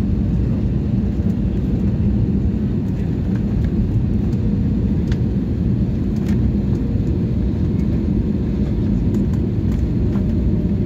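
Steady low rumble of a jet airliner's engines and rushing air heard inside the passenger cabin during the last seconds of approach and landing, running on unchanged as the plane reaches the runway.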